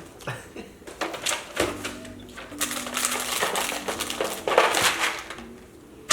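Snack packaging crinkling and rustling as it is handled, with a run of quick irregular clicks and rattles.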